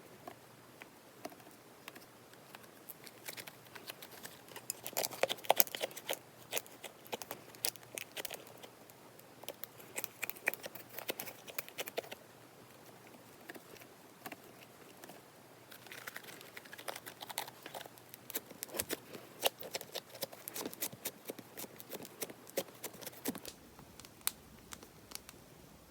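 Thick wood-clay slime being squeezed and stretched by hand, giving runs of sticky crackling clicks and pops with quiet pauses between them.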